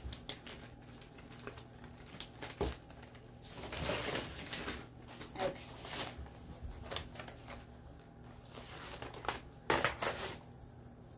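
Rustling and crinkling of a plastic-backed silkscreen transfer sheet being handled, with scattered small clicks and taps in between. The rustling comes in short spells, the loudest near the end.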